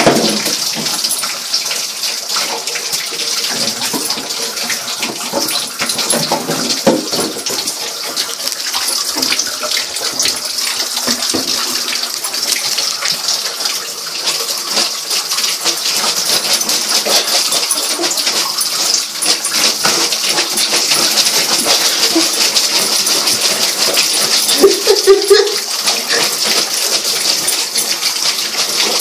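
Tap water running steadily into a bathtub, with irregular splashing and scrabbling as a young dog paws at the water and the tub floor. A short squeak comes near the end.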